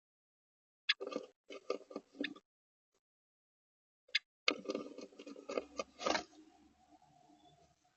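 Eastern bluebird shifting inside a wooden nest box, her feet and body scratching and rustling in the nest material in two short spells, with one louder knock about six seconds in.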